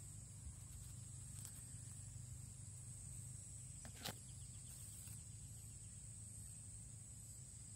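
Field ambience dominated by a steady, high-pitched insect chorus over a low rumble, with one short click about four seconds in.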